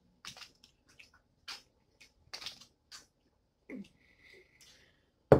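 Close-up, wet eating noises from seafood boil: a string of short slurps and smacks a few tenths of a second to half a second apart, then a sharp knock near the end, the loudest sound.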